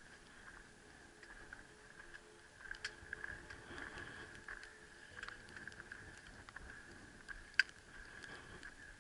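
Footsteps on rocky, gravelly mountain ground: scattered crunches and clicks of boots on stone and scree, with one sharper click about seven and a half seconds in.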